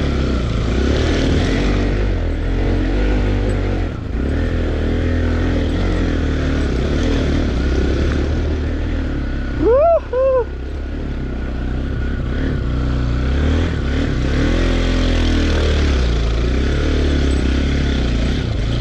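Off-road motorcycle engine running under load on a rough trail, its revs repeatedly rising and falling. About halfway through, a loud short two-part call rises and falls over it.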